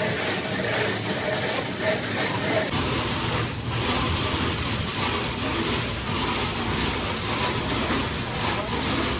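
Electric arc welding on a steel air compressor tank, the arc running steadily without a break; the sound changes character abruptly about three seconds in.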